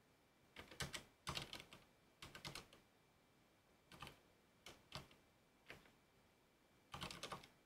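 Computer keyboard typing quietly, in short bursts of a few keystrokes separated by pauses of a second or so.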